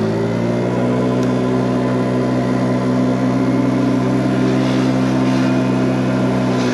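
Wolf Islander scooter's small engine running under way at a steady pitch after pulling off, its note dropping at the very end.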